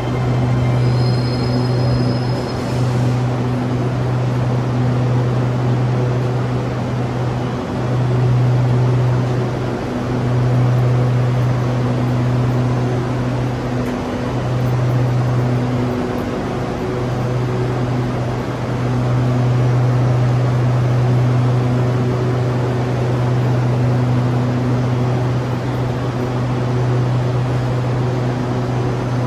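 Steady low hum of an SRT Red Line electric train standing at the platform with its doors open, with a few brief high tones in the first seconds.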